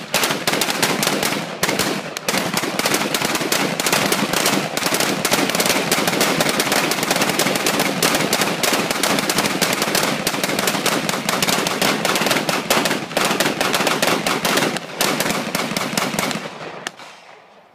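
Several assault rifles firing rapidly at once, the shots overlapping into a continuous barrage that thins out and stops near the end.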